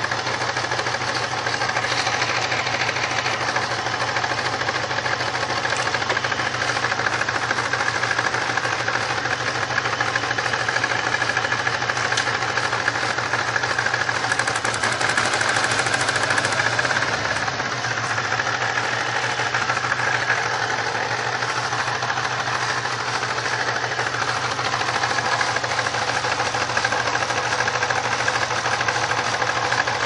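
Supercharged 3.8-litre V6 of a 1999 Pontiac Grand Prix idling steadily with a misfire, which the owner puts down to a bad ignition coil on cylinders 1 and 4.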